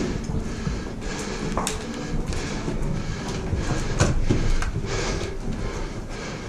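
Footsteps, scuffs and rattling gear of airsoft players jogging through a narrow cellar corridor, with irregular knocks a few times.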